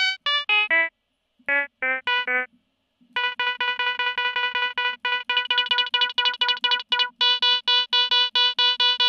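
A short vocal sample played back in Ableton Simpler and chopped by an LFO. First come a few short notes that jump in pitch, with gaps. Then a rapid stutter on one held pitch that speeds up and then slows down as the LFO wave shape changes.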